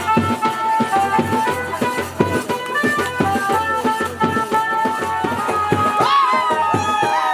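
Traditional music: a drum played with fast strokes that slide down in pitch, under a held, stepping melody line.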